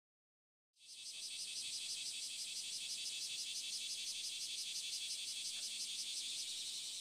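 A chorus of insects chirping, fading in under a second in and then running steady as a high, fast-pulsing drone.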